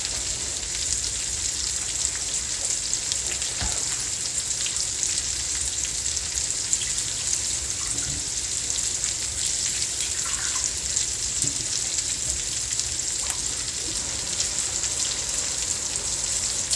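Lamb chops sizzling steadily as they sear in a hot pan, a continuous fine crackle with a few small ticks.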